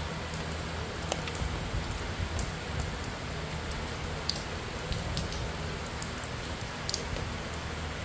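Heavy rain falling steadily on a flooded baseball field and dugout, with scattered sharp ticks of nearby drops hitting close by.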